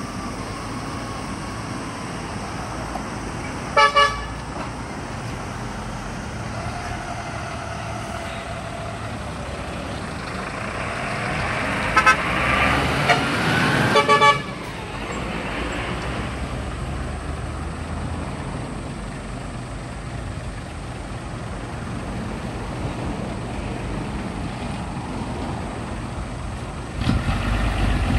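Concrete mixer trucks' diesel engines running as they drive past, with trumpet air horns sounding: one short blast about four seconds in, then several blasts around twelve to fourteen seconds in as a truck passes close. Near the end another truck's engine comes in louder.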